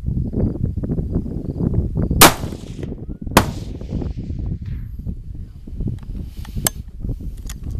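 Two rifle shots about a second apart, the first the loudest, each trailing off in a short echo, over a steady low rumble. Two lighter sharp clicks follow near the end.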